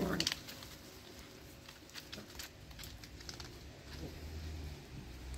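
Two puppies playing: a brief puppy vocal sound right at the start, then faint, scattered patters and scratches of their paws.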